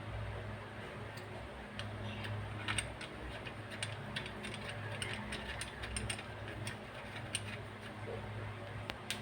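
Irregular light metallic clicks and ticks of hand-tool work on the parts of an oil-free dental air compressor being reassembled, with a ratchet-like run of clicks in the middle, over a low steady hum.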